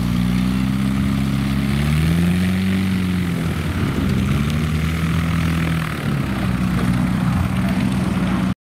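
Beneš-Mráz Be.60 Bestiola replica's Suzuki 1.6 car engine running with its wooden propeller turning as the light plane taxis on grass. The engine note rises about two seconds in and settles back, then dips and picks up again around six seconds. It cuts off abruptly near the end.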